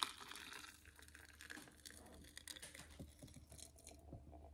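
Just-boiled water poured from a Jetboil cooking cup into a stainless steel insulated mug, a faint steady trickling splash that dies away near the end.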